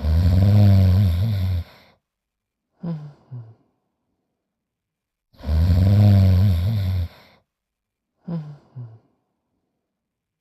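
Cartoon bloodhound snoring: two snores, each a long, low, pitched in-breath of about a second and a half followed by a short two-part puff out, repeating about every five seconds.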